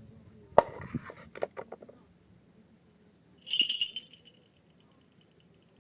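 A sharp knock and a short clatter of clicks, then, about three and a half seconds in, a brief high metallic jingle that rings on and fades away.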